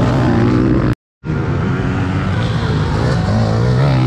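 Dirt bike engines revving and accelerating, their pitch rising and falling, with more than one engine heard at once at times. The sound cuts out completely for a moment about a second in.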